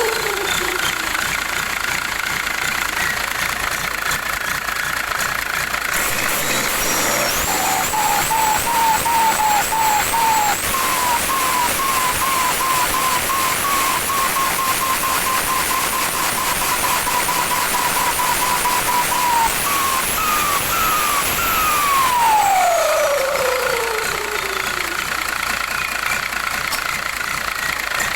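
Engine with a Holset H1C turbocharger, revved so the turbo whistles: the whistle climbs in small steps, holds at a high pitch, then falls away in a long glide as the revs drop. The engine runs steadily underneath.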